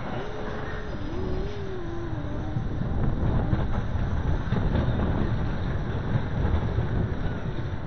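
Mine-train roller coaster cars rumbling along their steel track, with wind on the microphone; the rumble grows louder about three seconds in. A short wavering tone sounds in the first two seconds.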